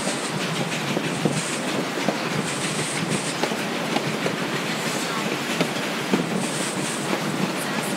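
Narrow-gauge passenger train rolling along, its wheels clicking irregularly over the rail joints over a steady rushing rumble of the moving cars.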